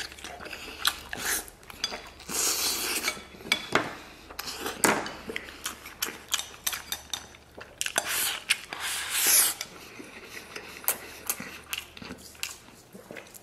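Wooden chopsticks scraping and clicking against a ceramic rice bowl as rice is shovelled up, with close-up chewing of a mouthful of braised lamb.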